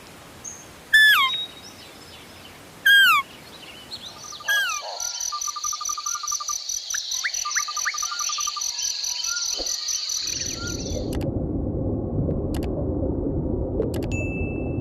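Three loud animal calls, each falling in pitch, about two seconds apart, followed by a steady high insect trill, like crickets, with scattered chirps that cuts off suddenly about eleven seconds in; a low rushing noise takes over near the end.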